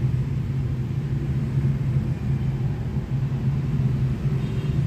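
Steady low rumble with a constant hum.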